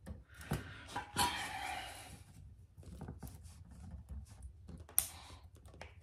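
Small clicks and rustling of stiff copper wire being handled and fitted into a WAGO 221 lever connector, with one sharper click about five seconds in.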